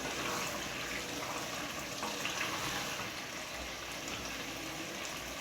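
Tomato sauce with pieces of cow skin simmering in a pot, giving a steady, even sizzle.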